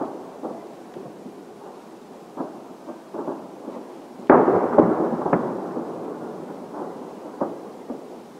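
Fireworks shells bursting at a distance: a series of dull booms, with a cluster of loud bangs about four seconds in that die away slowly.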